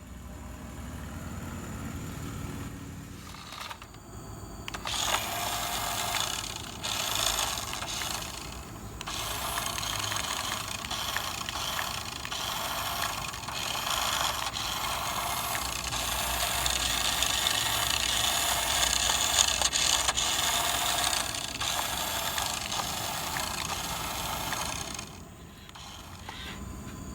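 Radio-controlled model construction machinery working: the electric motors and plastic gearboxes whir, with scraping. A low rumble comes first; from about five seconds in a dense high whirring starts and stops until it drops away near the end.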